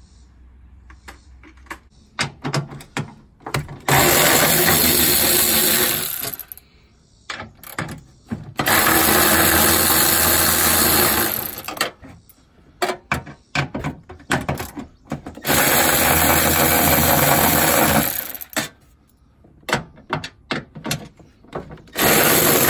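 Milwaukee cordless electric ratchet running in four spells of two to three seconds each, backing out the bolts that hold down a hybrid battery pack. Between the runs come short clicks and knocks of the socket and tool against the metal.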